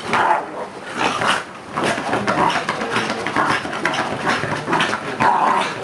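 Fox terrier scrabbling with its claws at a leather sofa cushion, with its own growls and grunts mixed into a steady run of rasping scratches.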